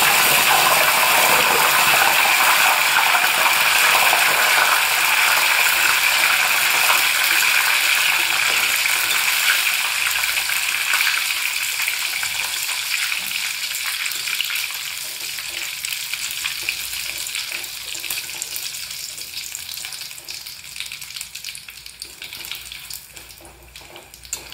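Raw nendran banana slices deep-frying in hot refined oil in an aluminium kadai, a loud, dense sizzle right after a few drops of salt water go in. The sizzle fades gradually over the second half as the moisture cooks out and the chips near crisp, with light scraping of a perforated skimmer stirring them.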